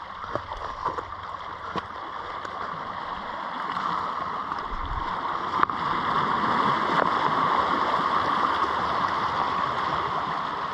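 Steady rushing of water, like sea wash among the rocks, growing louder about four seconds in, with a few light knocks in the first two seconds.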